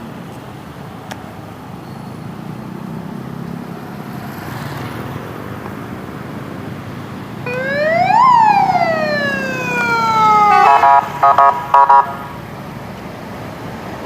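Telolet horn sounding over a running vehicle engine: a siren-like tone rises quickly and then slides slowly down, followed by a quick run of about five short toots.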